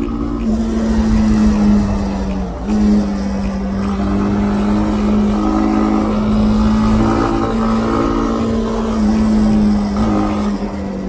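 Honda CB300R's single-cylinder engine running steadily under way, heard from the rider's position with wind rumble on the microphone; its note drops briefly about two and a half seconds in, then picks up again.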